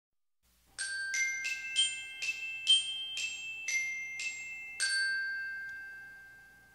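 A short intro jingle of bright, bell-like struck notes: about ten quick notes in a little melody, the last one ringing on and slowly fading away.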